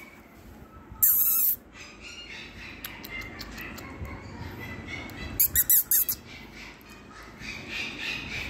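A small puppy whimpering in faint, high, squeaky whines. A loud rustling burst comes about a second in, and a quick cluster of sharp noisy bursts follows a little past the middle.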